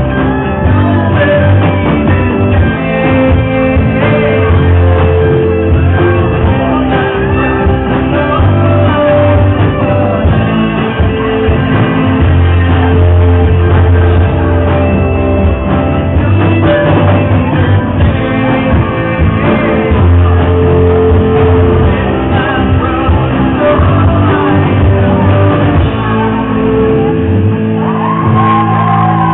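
A live rock band playing, with electric guitars, drums and a male singer half-shouting the vocals. Near the end the bass drops out and the music thins.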